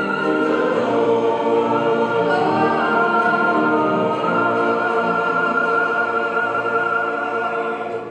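Recorded choir singing slow sacred music in long held chords; it fades out near the end.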